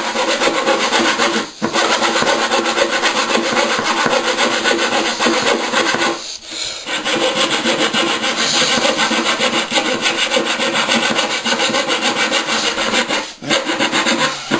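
Coping saw cutting through a wooden skirting board in fast, short rasping strokes, coping the board's moulded profile so it fits against the board already on the wall at an internal corner. The sawing stops briefly three times: about a second and a half in, for half a second just after six seconds, and near the end.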